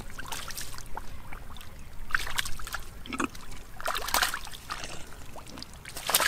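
Shallow muddy water sloshing and splashing as hands grope through the mud and water while fishing by hand, in several short bursts about two seconds apart.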